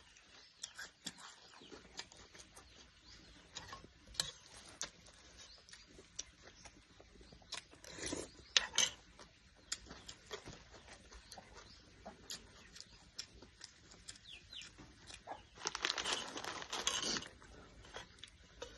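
Chickens clucking among scattered short clicks and knocks, with a longer noisy stretch of about a second and a half near the end.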